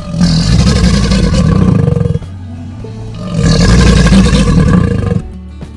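Crocodile growling: two long, rough, low calls of about two seconds each, with a short gap between them.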